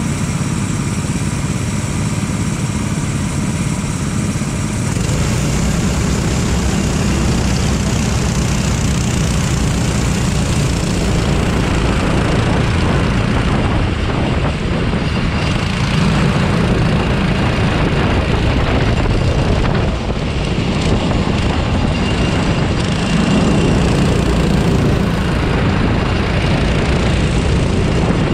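Racing kart engine running steadily under way, the note rising and falling a little.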